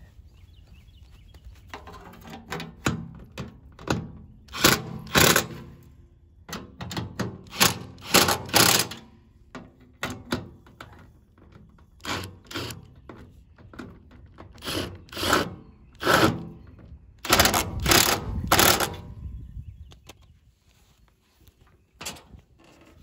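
Cordless impact driver hammering in many short bursts, driving the bolts that hold a wooden seat board to a go-kart's seat supports and steel floor pan.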